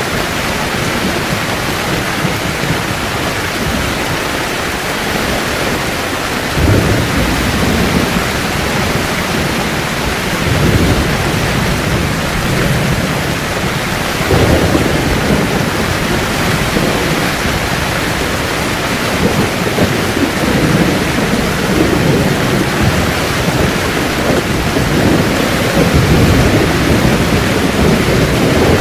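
Heavy rain falling steadily on a camping tent, with several rolls of thunder rumbling through it, the first about a quarter of the way in.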